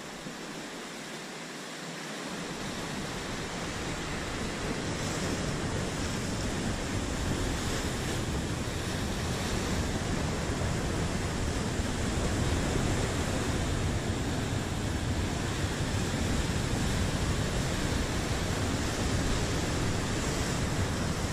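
Sea surf breaking and washing over rocks: a steady rush of white water that grows louder over the first few seconds.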